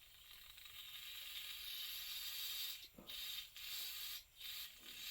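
Aerosol carb cleaner spraying through the generator tube of a Coleman stove: one long hissing spray of nearly three seconds, then four short bursts.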